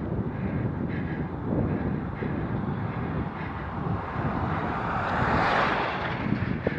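Box truck approaching in the oncoming lane and passing close by, its engine and tyre noise swelling to a rushing whoosh about five and a half seconds in, then fading. Steady wind rumble on the microphone from riding runs underneath.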